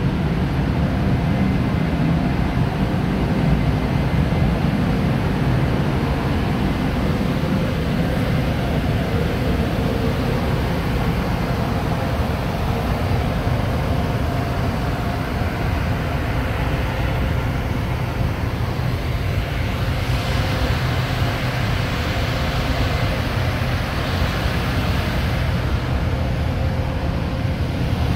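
Steady low drone of a ferry's engines and ventilation machinery heard on the open deck, an even rushing hum with a few faint steady tones in it.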